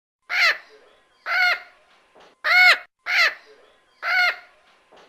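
Mexican red-headed amazon parrot (red-crowned amazon) calling: five harsh, squawking calls about one a second, each briefly rising and falling in pitch.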